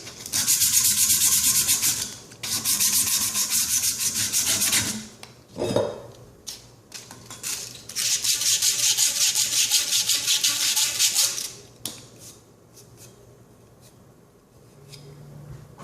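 Copper pipe and fittings being scrubbed clean with an abrasive to prepare them for soldering: three spells of fast rubbing strokes, with a longer pause before the third, then quieter handling near the end.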